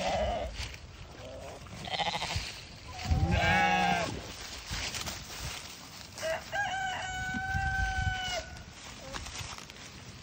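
A loud, wavering bleat about three seconds in. Then, from about six seconds in, a rooster crows, ending on one long held note of about two seconds.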